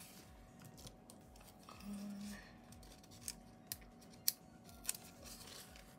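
Small, sharp clicks from a sheet of paper planner stickers being handled and picked at, about four of them in the second half.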